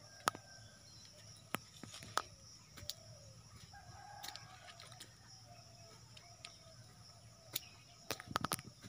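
A rooster crowing faintly, with wavering drawn-out calls through the middle of the stretch. Sharp clicks break in a few times, in a cluster near the end.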